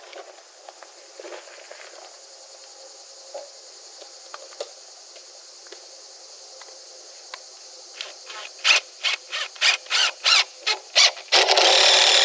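Cordless driver sinking a long screw into stacked 6x6 pressure-treated timbers: about ten short trigger bursts in quick succession, then one continuous run near the end as the screw is driven home.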